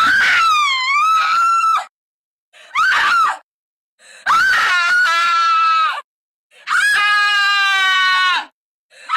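A woman screaming in a string of high-pitched shrieks separated by brief silences. The first wavers down and up in pitch, the second is short, and the next two are held. A fifth begins near the end.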